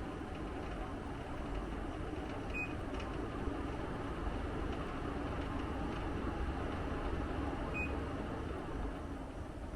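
Split air conditioner indoor unit running, a steady low hum with fan airflow, and two short high beeps about five seconds apart from the unit.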